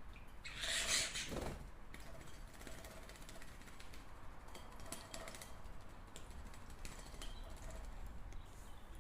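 Canaries moving about in their cage: scattered small clicks and taps, with a brief louder rustle about a second in.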